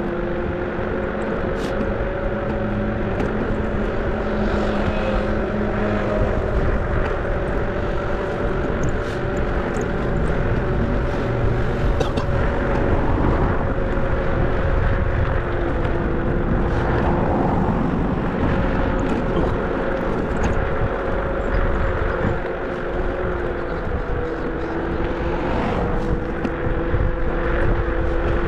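Car on the move: steady engine hum and road rumble.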